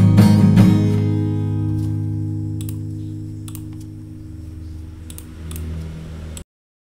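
Acoustic guitar: a few last strums, then the final chord left to ring and slowly fade, with a few faint ticks. The sound cuts off abruptly near the end.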